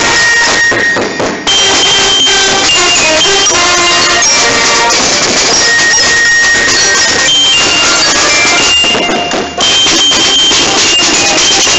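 Marching band playing close by: drums with brass horns, loud, with two brief dips in level.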